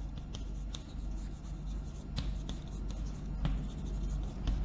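Chalk writing on a blackboard: irregular scratching strokes and light taps of the chalk against the board.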